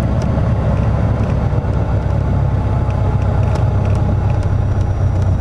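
Single-engine light plane's engine and propeller droning steadily, heard inside the cabin as it rolls along the runway, with a few faint ticks.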